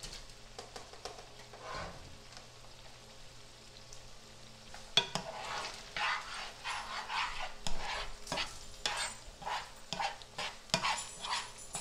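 Chopped vegetables sizzling in a frying pan while a spoon stirs and scrapes them against the pan. The stirring is light at first; from about five seconds in it comes as quick, irregular scraping strokes.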